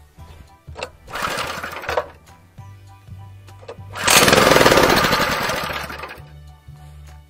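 Single-cylinder petrol engine of an Oka walk-behind tractor running unevenly and revved twice: a short surge about a second in, then a longer, louder one in the middle. The engine has been smoking black and stalling, and is being run to find the cause.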